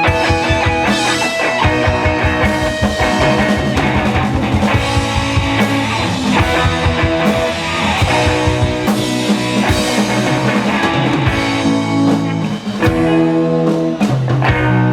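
Live rock band playing with guitar and drum kit. Near the end the drumming stops and a held chord rings on as the song closes.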